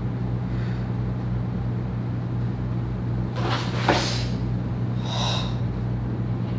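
Steady low hum of room noise, with two short hissing rushes about three and a half and five seconds in, the first ending in a sharp snap: a karateka's forceful breathing and the swish of his karate gi as he moves through the opening of the kata Suparinpei.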